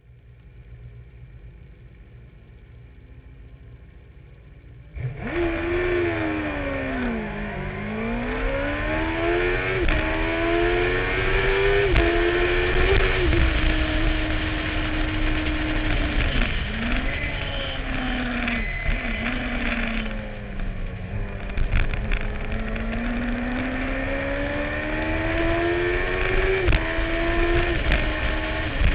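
Suzuki-engined racing sidecar's engine at full racing speed, heard from a camera on its own fairing: quieter at first, then about five seconds in it turns loud, climbing in pitch through the gears with sharp drops at each upshift, holding a steady note in the middle and pulling up through the revs again near the end.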